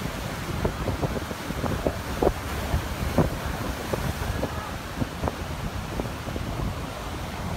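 Strong wind blowing on the microphone, a low rumble with frequent brief pops, over the wash of breaking surf.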